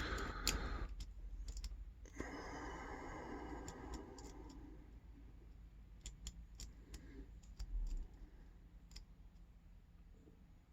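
Lock pick and tension tool working in the keyway of an all-brass Yale padlock: scattered small metallic clicks with a scratchy rustle early on, as the lock is reset and the pins are picked again.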